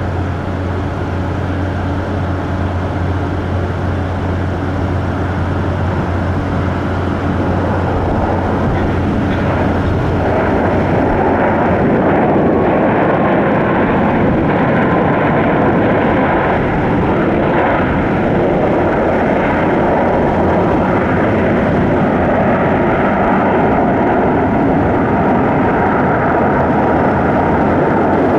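Boeing 737-8 MAX's CFM LEAP-1B turbofan engines as the jet comes in to land: a steady rushing engine noise that grows louder about ten seconds in and then holds.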